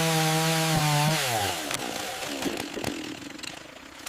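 A high-revving motor runs at a steady pitch, then winds down about a second in, its pitch falling away, leaving a low noisy background.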